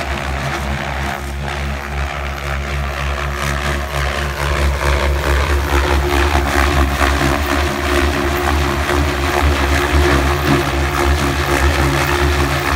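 Electric radio-controlled helicopter in flight: a steady drone from the main rotor and motor, growing a little louder about four seconds in.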